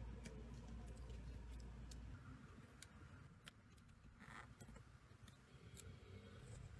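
Faint, sparse clicks and one short scrape of a hand chisel cutting wood, slicing along a carved letter in a flat board. A low hum underneath drops away about two seconds in.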